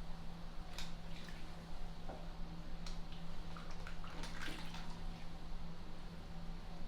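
Bathwater in a bubble-filled tub: scattered small splashes and drips, several in quick succession about four seconds in. A steady low hum runs underneath.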